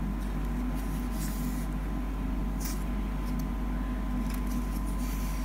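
Steady low background hum, with a few faint, brief swishes of hands sliding over and handling a plastic-wrapped wooden box.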